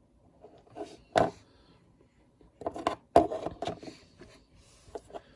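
Plastic LEGO bricks being handled and snapped together: a sharp click about a second in, a cluster of clicks and rattles around three seconds in, and a few light ticks near the end.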